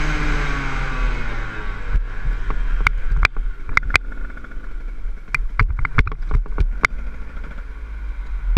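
Enduro motorcycle engine falling in pitch as the throttle is closed, then running faintly while the bike coasts. Scattered sharp knocks and clatter come from the bike over rough ground, over a steady wind rumble on the helmet microphone.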